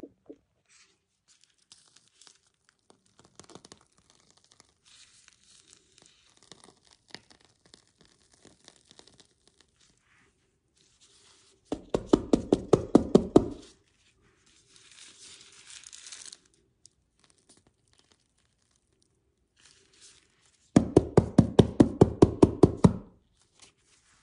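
Plastic piping bag and disposable plastic glove crinkling as whipped body butter is piped into a small plastic jar: light rustles and clicks, then two loud bursts of rapid crackling, each about two seconds long, about halfway through and near the end.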